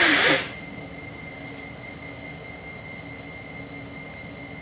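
A man coughs once, a short harsh cough, right at the start while sick with a cold. After it comes a steady background hum with a thin high whine.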